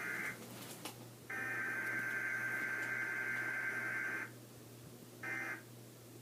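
Emergency Alert System test tones, digital data bursts sitting around 1.5 to 2 kHz. A short burst comes at the start, then one long burst of about three seconds, then another short burst near the end, over a steady low hum.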